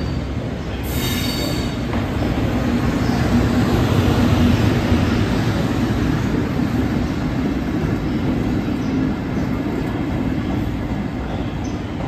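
An EF210 electric locomotive hauling an EH500 electric locomotive passes slowly at close range: a steady rumble of steel wheels on the rails with a low hum, loudest about four seconds in and easing off after.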